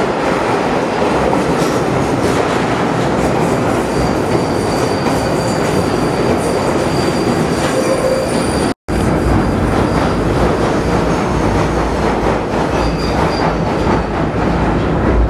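London Underground Northern line train pulling into the platform, a loud steady rush of running noise with a thin high squeal from about four seconds in. After a brief dropout, the noise from inside the moving carriage takes over, with a heavier low rumble.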